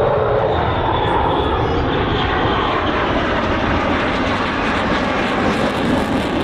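Military jet flying over, its engine noise loud and steady throughout.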